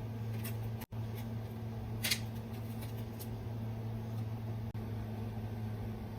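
A steady low electrical hum with a few faint, brief rustles as small parts of a phone battery replacement kit are handled.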